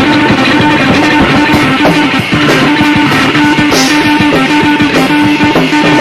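Improvised rock jam played live: distorted electric guitar holding and changing sustained notes over a drum kit, with cymbal crashes about four seconds in and again near the end, recorded raw without a sound check.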